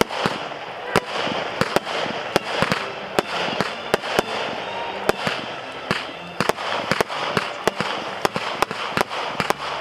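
Aerial fireworks going off: a rapid, irregular string of sharp bangs, several a second, over a continuous crackling hiss from the bursting shells.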